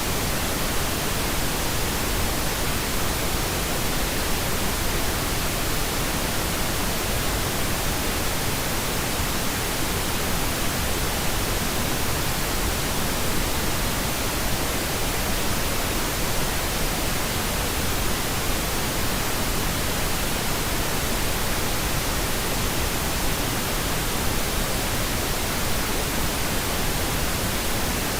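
Steady white noise from a white noise machine: an even, unchanging hiss.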